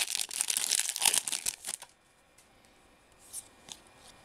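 Baseball card pack wrapper being torn open and crinkled by hand, a dense crackly rustle for about the first two seconds. Then it goes quiet apart from a few faint rustles as the cards are handled.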